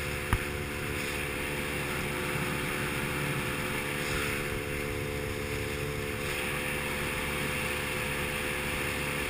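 Aluminum boat's motor running at a steady cruising speed, with water rushing along the hull. There is one short click about a third of a second in.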